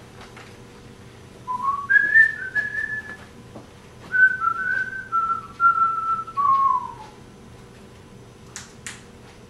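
A person whistling a tune in two phrases of sliding notes, the first climbing and the second stepping down to a falling end. Near the end come two brief sharp clicks.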